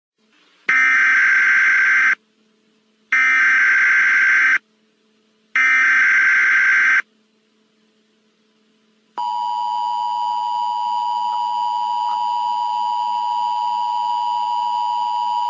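Emergency Alert System tones: three bursts of screeching SAME header data, each about a second and a half long with a short gap between them, then, from about nine seconds in, the EAS attention signal, a steady two-tone beep held through to the end.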